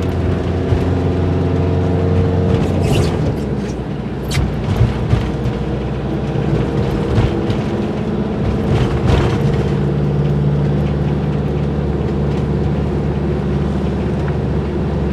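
Diesel motorhome driving on the road: steady engine and road drone, the engine note shifting about three seconds in and again about two-thirds through, with a few short sharp clicks or knocks.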